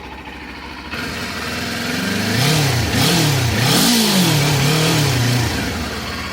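Kawasaki Ninja 400's parallel-twin engine running, then revved three times in quick succession, its pitch rising and falling with each throttle blip before settling back to a steady run.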